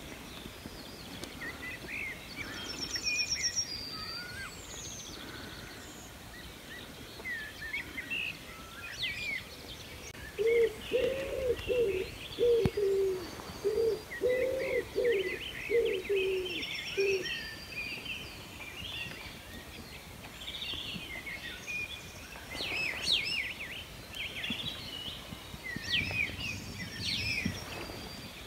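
Morning chorus of songbirds chirping and trilling. Through the middle of it a pigeon coos a low phrase repeated over and over for about six seconds.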